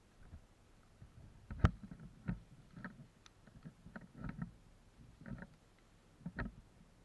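Irregular dull thuds and light knocks, several of them spaced roughly half a second to a second apart, with one sharper, louder knock about one and a half seconds in. They are typical of a player's footsteps and gear brushing against things while moving on foot.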